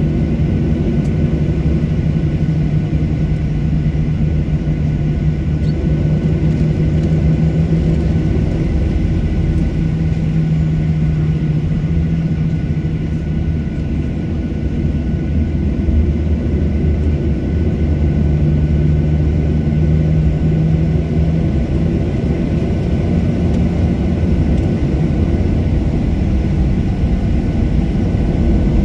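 Jet airliner's engines heard inside the cabin at low power on the runway: a steady low rumble with a constant whine. Near the end a whine starts to rise as the engines begin to spool up for takeoff.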